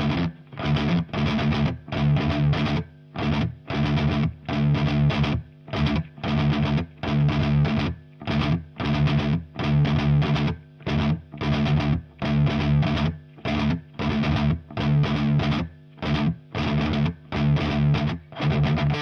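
Distorted electric guitar riff from a 1980 Gibson Les Paul Custom with stock T-Top humbuckers, played through a Diezel VH4 amp head into a Marshall 4x12 cabinet with Celestion Vintage 30 speakers. It plays short, muted chords that cut off sharply, about two a second, with brief gaps between them.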